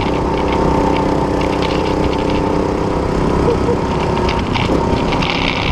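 Go-kart's small petrol engine running steadily under way, heard from the driver's seat.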